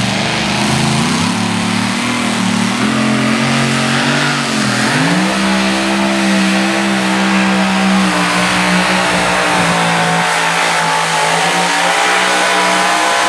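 Supercharged engine of a 6,200 lb two-wheel-drive pulling truck running hard under load as it drags the weight-transfer sled down the track. Its note dips briefly about four and a half seconds in, then rises and holds steady.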